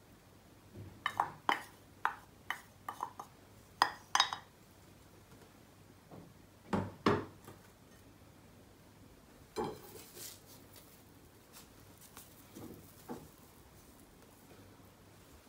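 Metal knife clinking and scraping against an amber glass saucepan as cherry sauce is scraped out onto a pancake: a quick run of sharp clicks in the first four seconds, then a few heavier knocks of cookware and plate around seven and ten seconds in.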